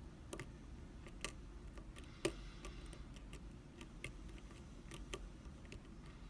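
Faint, irregular metallic clicks and ticks of lock picks working the pins of a BKS euro cylinder, with one sharper click a little over two seconds in.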